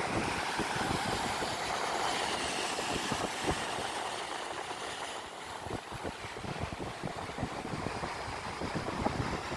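Ocean surf washing onto the beach in a steady rushing hiss, with wind buffeting the microphone in irregular low thumps.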